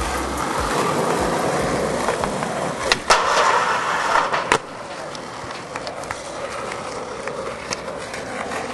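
Skateboard wheels rolling on asphalt. About three seconds in comes a pop and a grind along the edge of a metal bleacher for about a second and a half, ended by a sharp clack, and then the board rolls on more quietly.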